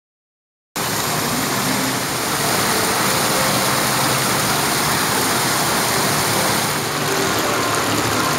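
Steady rushing noise of falling water from a display's water feature, cutting in suddenly about a second in.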